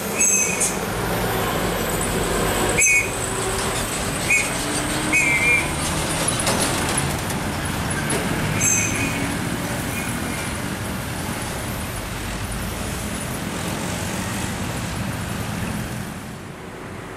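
Heavy diesel trucks and other traffic passing close by on a road, a steady low engine and tyre rumble, with a few short high-pitched squeaks in the first half.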